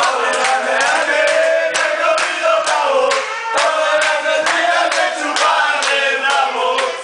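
A group of men singing a villancico (Spanish Christmas carol) together, with hand claps keeping a steady beat about three times a second.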